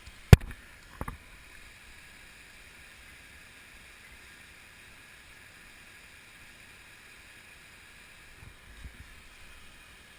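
One sharp, loud knock about a third of a second in, then a softer double knock about a second in, over a faint steady rushing noise.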